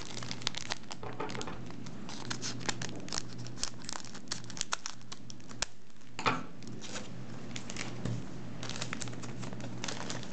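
Foil trading-card booster packs crinkling as they are handled and cut open with scissors: a busy run of small crackles and snips.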